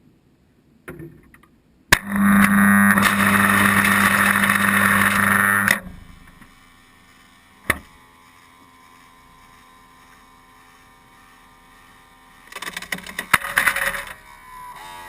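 A refrigerator ice maker's electric motor starts with a click, hums loudly and steadily for about four seconds, then cuts off suddenly. Later there is a single click and a short burst of clattering.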